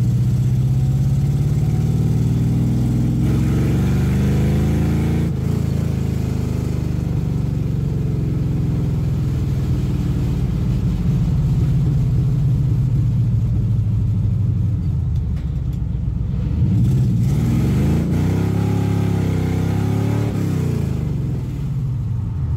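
1969 Camaro's 307 small-block Chevy V8 under throttle, heard from inside the cabin. The engine pitch climbs and drops off sharply about five seconds in, then climbs and falls again near the end.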